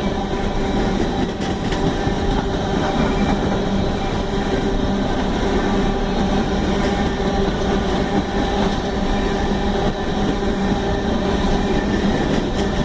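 Union Pacific freight train's cars rolling past, a steady loud rumble with faint clicks of wheels over the rail joints.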